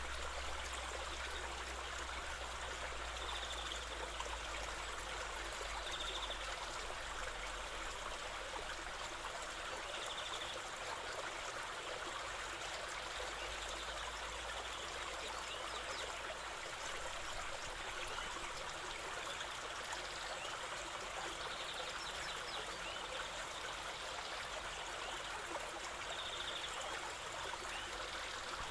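River water flowing steadily, a continuous rush and babble.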